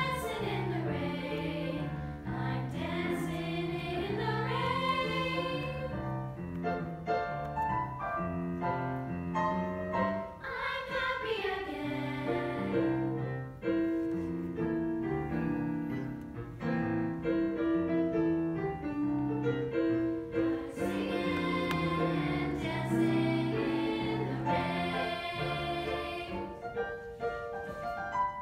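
Girls' choir singing together with piano accompaniment: a continuous sung melody with long held notes and sliding phrases over steady chords.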